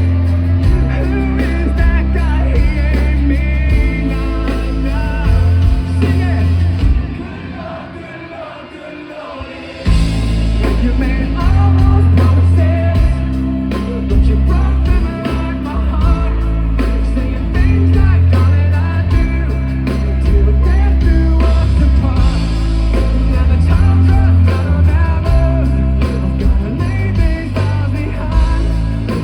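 Rock band playing live with sung vocals, heavy bass and drums. About seven seconds in the bass and drums drop away for a quieter break, and the full band crashes back in about three seconds later.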